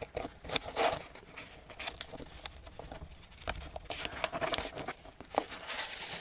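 Plastic battery case being handled and pressed together around a cylindrical lithium-ion cell: scattered small clicks and scrapes of plastic, the sharpest about two seconds in.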